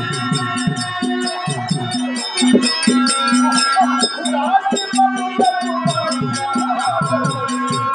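Live folk-theatre accompaniment: hand drums playing a fast, steady beat under a constant fast jingling of small bells or cymbals, with a wavering melody line on top.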